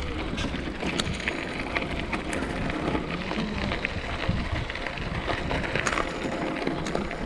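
Bicycle being ridden, heard from a chest-mounted camera: steady tyre and road noise with frequent small rattling clicks and a low wind rumble on the microphone.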